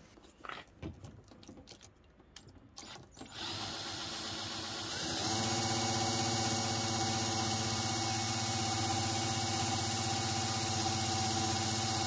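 A Parkside cordless drill driving a Parkside drill-attachment pump, drawing air and diesel out of the fuel line to bleed the fuel system. After a few handling clicks the drill starts about three seconds in and runs steadily, getting louder about five seconds in.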